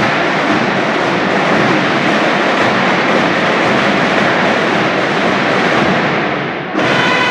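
School marching band drums (snares and bass drums) playing loud, dense, continuous drumming; about a second before the end, brass horns come in with a sudden loud held chord over the drums.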